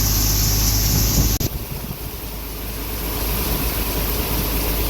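Combine harvester running steadily, a hum with a strong hiss over it. About a second and a half in, the sound changes abruptly to a lower, rougher engine rumble.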